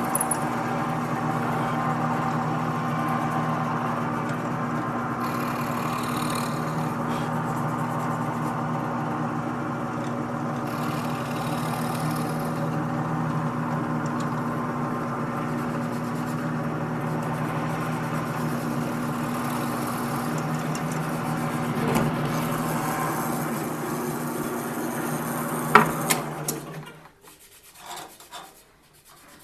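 Floor drill press motor running steadily while the bit bores a hole through a solid wood bass guitar body. Near the end there is a sharp click and the motor is switched off and spins down.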